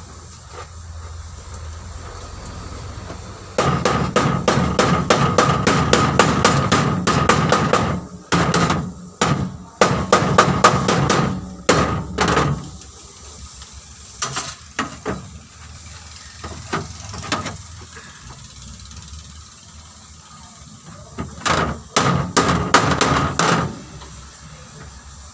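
Hammer beating on car-body sheet metal in fast runs of strikes with a metallic ring, broken by pauses. It is the hand straightening of collision damage.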